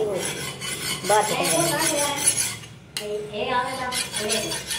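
A meat cleaver being sharpened: its blade is scraped against another blade in repeated quick strokes of metal on metal.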